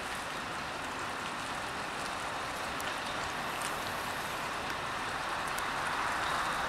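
Long articulated truck running at low speed as it slowly reverses: a steady, noisy engine hum that grows a little louder near the end.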